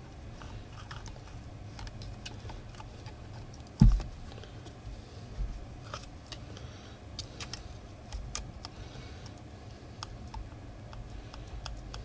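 Small clicks and scrapes of metal tweezers picking at wires and plastic parts inside the opened plastic housing of a JBL Flip 4 speaker, with one dull knock about four seconds in.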